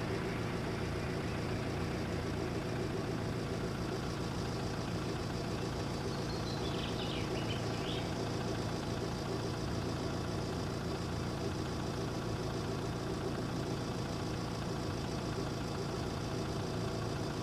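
An engine idling steadily, with a bird chirping briefly a few times about halfway through.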